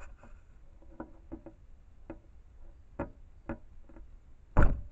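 Fox kit chewing and nosing at a trail camera's case: irregular sharp clicks and taps of teeth on the housing, with one much louder knock near the end.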